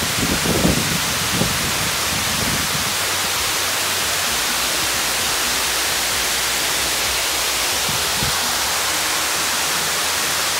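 Floodwater overflowing a masonry dam after heavy rainfall, pouring down the stepped stone spillway face in a loud, steady rush of falling water. A few brief low rumbles sound in the first second or two.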